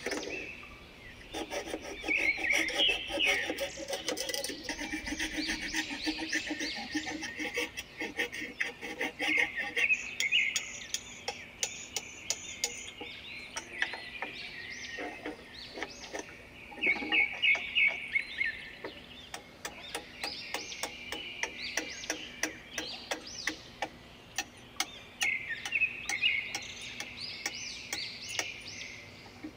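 Woodland songbirds chirping and singing, call after call. Through the middle a quick run of short ticks or clicks runs under the song.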